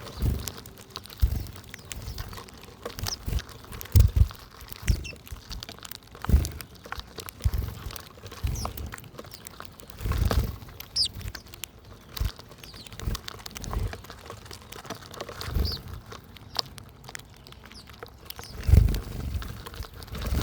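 Wild birds at a backyard feeder: scattered short, high chirps over repeated low bumps and rustling. The heaviest bumps come about four seconds in, about ten seconds in, and just before the end.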